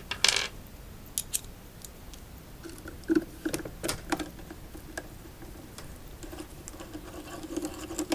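Scattered light clicks and scratching from hands and a screwdriver working on small plastic parts and screws while the unicycle's shell is being taken apart.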